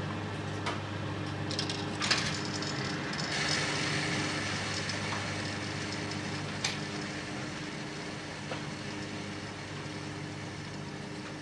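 Steady hum of coin-laundry machines, with a few sharp clicks and knocks and a stretch of rustling as laundry is handled at the washers; the loudest knock comes about two seconds in.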